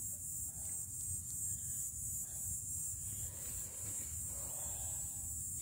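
Quiet forest ambience: a steady high-pitched chirring of insects, with a low rumble underneath.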